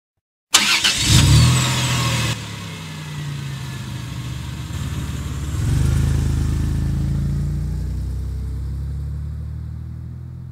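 A car engine starting and running, swelling about six seconds in and then gradually fading as the car drives away.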